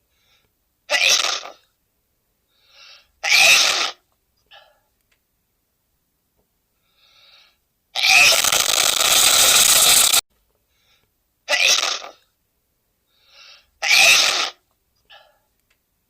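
A man sneezing loudly again and again: five sneezes, one of them drawn out for about two seconds. A faint short in-breath comes just before some of them.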